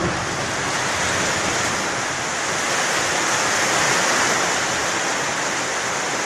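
Strong wind from a nearby tornado rushing steadily over the microphone, a constant hiss of noise that swells slightly about halfway through.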